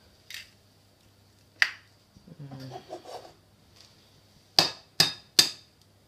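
Egg tapped against the rim of a glass mixing bowl to crack it: a couple of single clicks, then three sharp taps in quick succession near the end.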